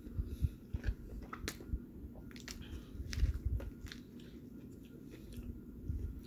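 A person biting into and chewing a fried chicken sandwich close to the microphone: scattered small clicks and low thuds, busiest a little past the middle.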